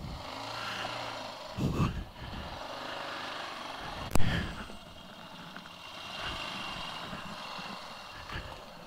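Yamaha XT600E single-cylinder four-stroke engine running as the motorcycle edges forward. A single sharp knock comes about four seconds in.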